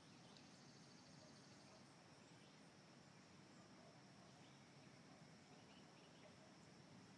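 Near silence: faint outdoor ambience with a steady, high-pitched insect trill.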